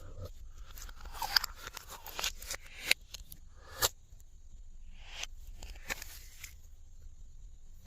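Hands working glossy slime, stretching and pressing it: an irregular run of sticky clicks and crackles, with a few sharper pops in the first half.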